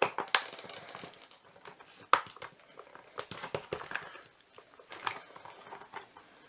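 Plastic housing of a Shark WandVac cordless vacuum's power nozzle being handled and pulled at by hand as its clipped-on top cover is worked loose: irregular plastic clicks and knocks with rubbing between, the sharpest about a quarter of a second in and again about two seconds in.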